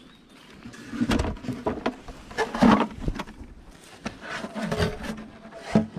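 Wooden beehive boxes being handled: a series of knocks, bumps and scrapes starting about a second in, the loudest near the middle.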